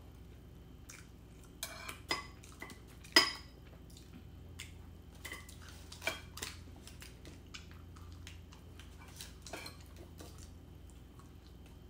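Metal cutlery clinking and scraping against a ceramic bowl while a scone is cut, a scattering of sharp clicks with the loudest about three seconds in.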